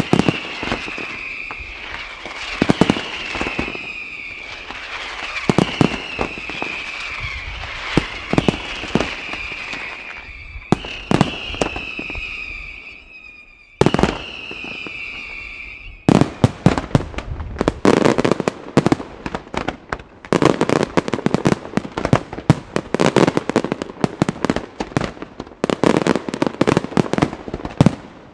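Aerial fireworks display: shells launching and bursting with sharp bangs over a high whistling tone that falls slightly in pitch and repeats. About sixteen seconds in, the whistling stops and a dense, rapid barrage of bangs and crackle begins.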